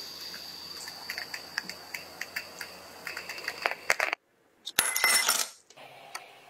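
Bialetti Brikka moka pot brewing on an electric hob: a steady high hiss with a stream of small crackling pops as the coffee rises into the upper chamber. It breaks off about four seconds in, and a second later a short, louder rush of hiss lasts under a second.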